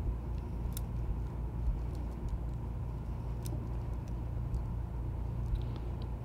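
Steady low background hum, with a few faint ticks as the twisted pairs of a Cat6a cable are separated and untwisted by hand.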